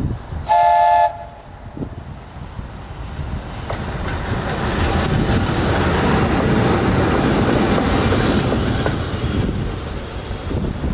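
VL8 electric locomotive sounding one short horn toot about half a second in, then passing with wheel and rail noise that builds, peaks midway and fades near the end.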